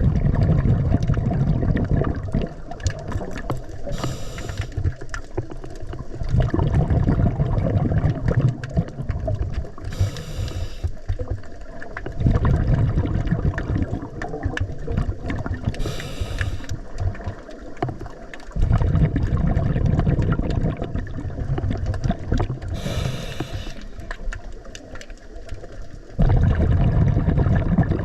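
Scuba diver breathing through a regulator underwater. A short hiss on each inhalation is followed by a longer, louder burble of exhaled bubbles, and the cycle repeats about every six to seven seconds, four times here.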